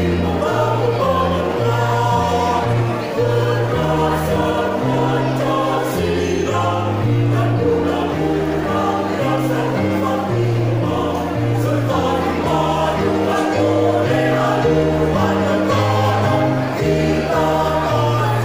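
A choir singing a song in parts, with a bass line moving note by note beneath the voices.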